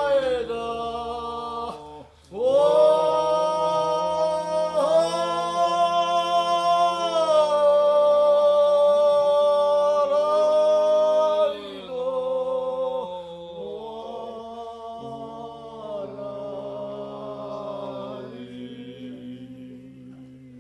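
Three men singing an Abkhaz folk song a cappella in parts: long held notes over a steady low drone. There is a short break about two seconds in, and the singing grows quieter over the last third.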